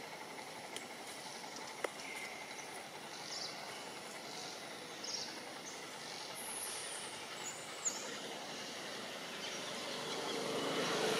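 Steady outdoor background hiss with a few faint sharp clicks and some faint high chirps.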